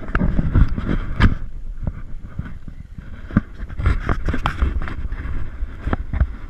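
Wind rumbling on the microphone, with repeated rustling and snapping cracks of scrub brushing against clothing and underfoot as someone pushes through dense bush.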